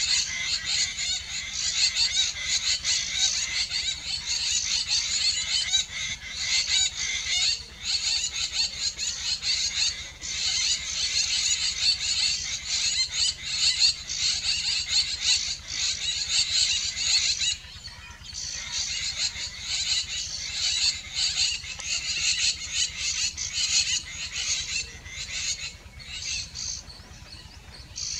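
Dense, continuous, high-pitched animal chorus, a rapid shimmering mass of chirps or trills with no single call standing out. It dips briefly a little past halfway, then carries on somewhat quieter.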